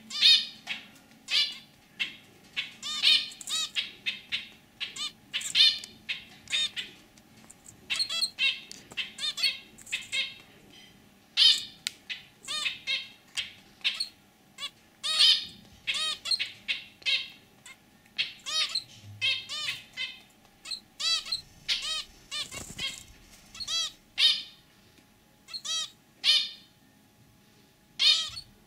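Zebra finch calling: clusters of short, high-pitched calls repeated every second or so.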